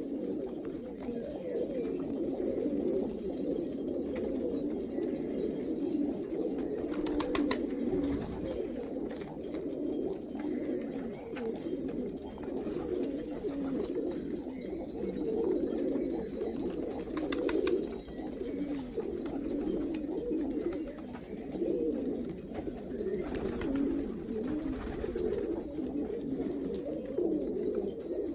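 A flock of domestic pigeons cooing together, many overlapping low coos that run on without a break, with a few faint clicks about seven seconds in and again around seventeen.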